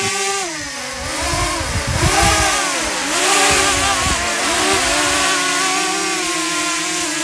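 A motor running without a break, its pitch rising and falling again and again.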